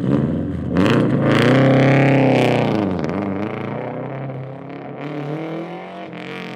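Car engine starting up suddenly and running, its pitch sagging about three seconds in and then rising again like a rev.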